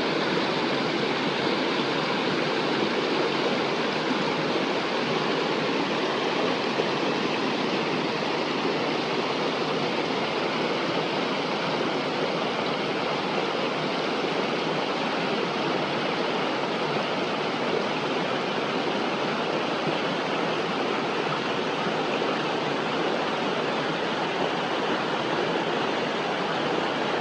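River water flowing and rushing, a steady even rush with no change.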